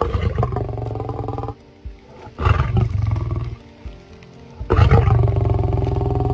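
A large animal roaring in three long, deep, rasping bursts, with background music underneath.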